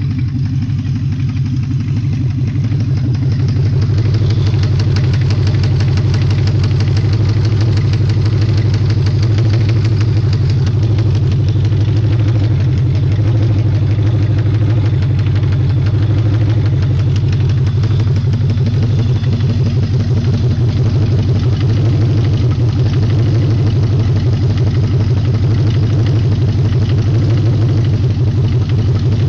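Audi V8 engine running at a steady idle with a fast, regular ticking clatter over it, an abnormal noise from the engine. The level rises slightly in the first few seconds, then holds steady.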